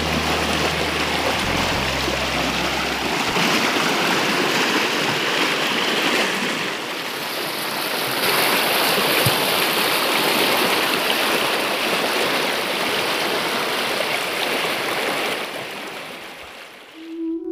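Stream water rushing and splashing over rocks, a steady dense rush that fades out near the end.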